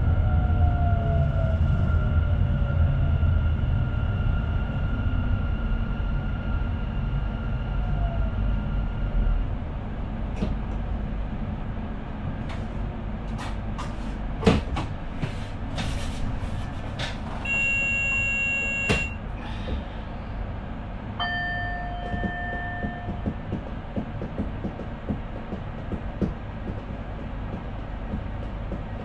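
Inside the cab of an NS Sprinter Nieuwe Generatie electric train: a steady running rumble with the whine of the traction equipment, some of it falling in pitch, until the rumble drops away about nine seconds in. Then come scattered sharp clicks and knocks, a short series of high beeps, and a couple of seconds later a steady tone lasting about two seconds.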